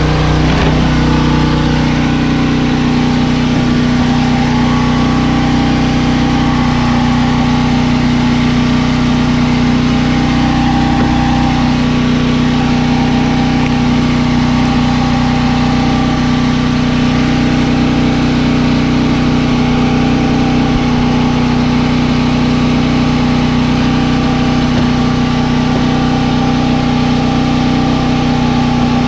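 A motor or engine running steadily at one constant speed, with an even hum and hiss that does not change.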